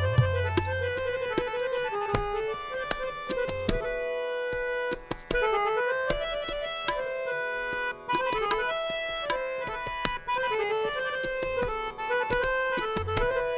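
Instrumental Malay ghazal music: tabla strokes keeping a steady rhythm under a reed instrument, accordion or harmonium, playing a winding melody in the style of a raga.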